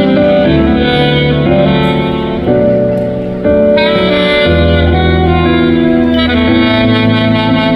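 Saxophone playing a Christmas melody in held notes, over an accompaniment with a bass line and chords.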